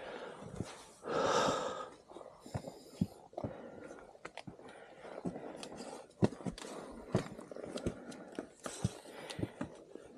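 A person's loud breathy exhale about a second in, among irregular small knocks and clicks such as footsteps and handling.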